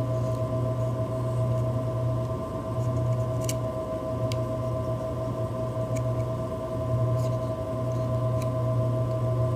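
Steady low electrical hum with a couple of faint steady tones above it, and a few faint clicks spread through it.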